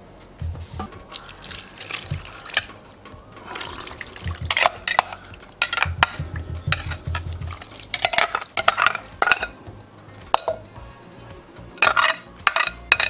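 A metal spoon scraping and clinking against a metal bowl as a cream sauce with garlic and herbs is poured from it into a cast-iron kazan, the liquid splashing onto the chicken.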